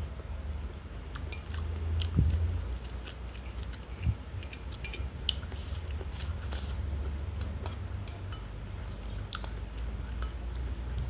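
Close-miked eating: a person chewing with many short, quick mouth clicks and a few clinks of cutlery, over a steady low hum.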